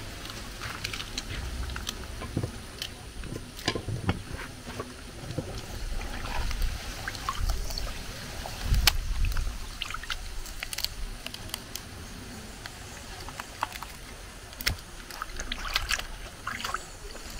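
Water sloshing and splashing in a plastic bowl as hands wash and rub pieces of smoked fish, with irregular small splashes, drips and clicks.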